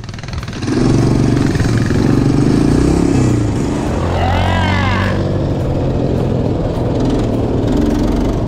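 Quad bike engine running close up as the rider gets under way about a second in, its pitch rising and falling a few times before it settles to a steady run. A brief high wavering sound cuts in about halfway through.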